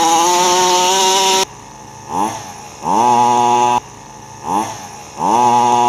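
The small two-stroke engine of a 1/5-scale gasoline RC buggy revs high, drops to idle about a second and a half in, then is throttled up again in bursts: a quick blip, a longer rev, another quick blip, and a rev held to the end, each climbing in pitch.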